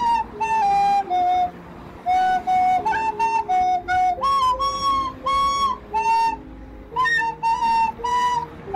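Background music: a melody of short and held notes, moving up and down, over a quieter lower accompaniment.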